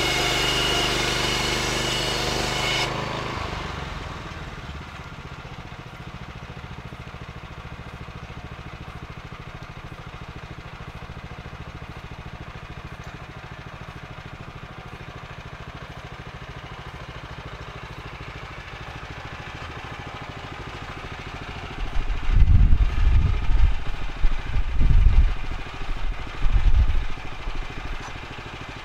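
Woodland Mills HM126 band sawmill's gasoline engine running at high revs, then dropping to a steady idle about three seconds in. Near the end, irregular heavy low rumbling bursts come over the idle.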